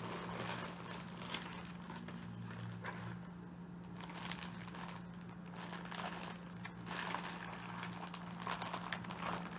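Plastic packaging crinkling and rustling in irregular bursts as it is handled, over a faint steady low hum.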